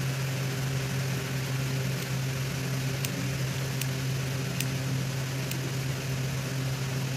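Small scissors snipping cotton thread close to a knot: about five faint sharp snips spaced roughly a second apart, over a steady low hum.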